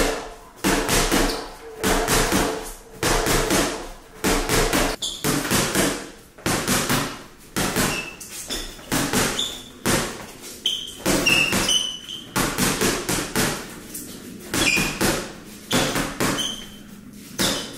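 Boxing gloves striking a freestanding reflex punching bag, its ball mounted on a coiled spring stem and then on a flexible rod, in a steady run of hits about one to two a second. A low ring follows the hits in the first few seconds, and short high squeaks come between hits in the second half.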